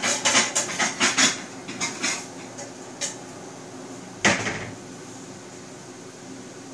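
A metal wok ladle scrapes and clanks against a wok as fried noodles and bean sprouts are stirred and tossed, with a rapid run of clatters and one loud knock about four seconds in. After that the wok gives a steady frying hiss over the gas flame.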